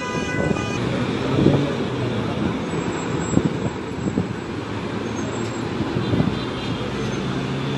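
Road traffic noise: the steady hum of idling vehicles, with a low engine drone throughout. A short flat, steady tone, like a car horn, sounds in the first second.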